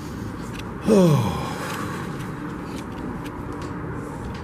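Glass entrance door pulled open, with a falling groan and a rush of air about a second in, then a sharp click near the end as it swings shut.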